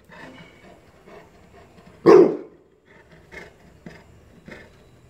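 Bullmastiff giving one loud bark about two seconds in, followed by a few faint short sounds.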